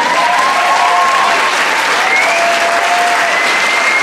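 Theatre audience applauding loudly at the end of a song, with a few long held calls rising over the clapping.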